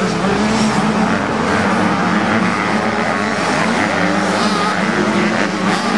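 A pack of 85cc two-stroke motocross bikes racing together, their engines revving at once in a dense, steady drone with no single bike standing out.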